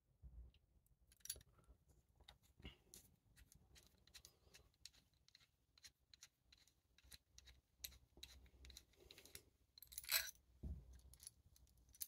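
Faint clicks and light scraping of a quick-release bicycle seat post clamp being taken apart by hand: the knurled adjusting nut is spun off the threaded bolt and the bolt is worked out of the cam lever. A louder cluster of clicks comes about ten seconds in.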